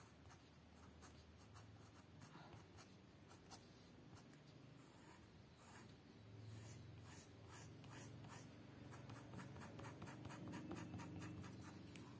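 Faint scratching of a thick crayon rubbed across paper in quick, short strokes that grow a little louder in the second half.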